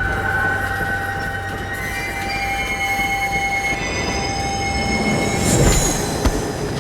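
Train rolling with a low rumble while its wheels squeal in several sustained high tones. About four seconds in, higher squeal tones join, and near the end there is a brief sharp screech and a click.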